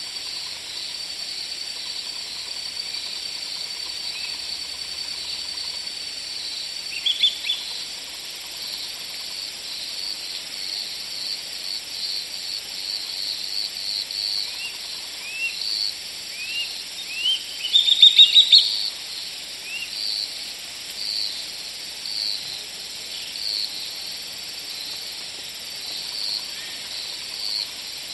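Outdoor nature ambience: insects chirping in a high, repeating pulse about once a second, with short upward-sweeping bird calls scattered through and a brief loud run of quick notes about two-thirds of the way in.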